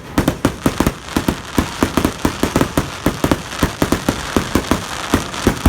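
Fireworks display: a rapid, uneven barrage of bangs, about five a second, over continuous crackling.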